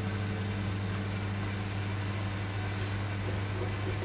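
Steady low hum with a fixed pitch, unchanging throughout, like an appliance or electrical hum in the room.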